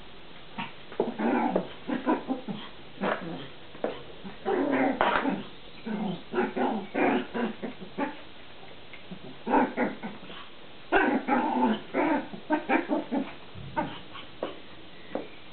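Pomeranian puppy barking and yipping at a mop in quick strings of short, chattering noises, the puppy's 'gremlin' talk. It comes in three main bouts with short pauses between.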